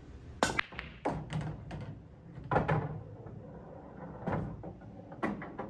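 A nine-ball break shot: the cue ball hits the racked balls with a sharp crack about half a second in. A scatter of clacks and knocks follows over the next few seconds as the balls strike each other and the cushions.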